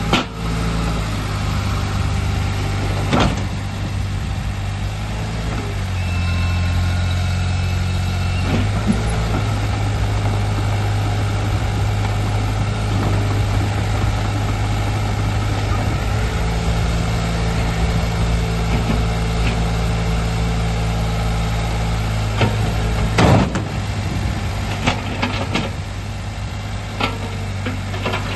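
Komatsu PC40 mini excavator's diesel engine running, its note stepping up and down as the hydraulics work the boom, blade and tracks. A few sharp clanks of steel on concrete cut through, the loudest about 23 seconds in.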